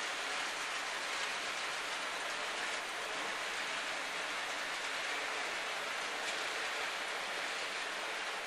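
Steady rushing noise of model trains running on the layout's track, even throughout with no distinct motor whine or clicks.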